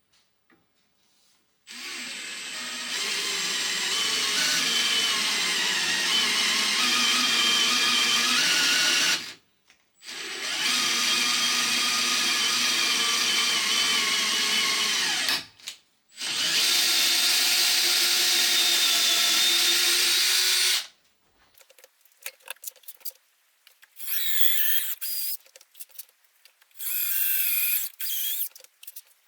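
Cordless drill power-tapping M8 threads into aluminium. The motor runs steadily in three long stretches of several seconds each, then in a few short bursts with clicks near the end.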